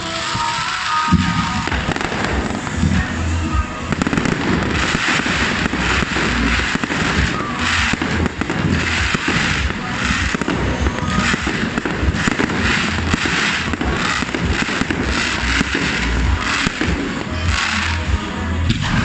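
Fireworks display: many bursts in quick succession, beginning about a second in, with music playing alongside.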